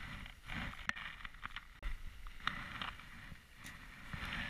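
Handling noise on a chest-worn action camera: jacket fabric rustling and rubbing against the microphone in irregular bursts, with a sharp click about a second in.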